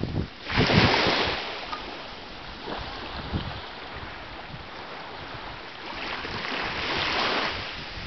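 Small waves washing up on a sandy beach: one loud wash about half a second in and a softer, longer one around six to seven seconds, with some wind on the microphone.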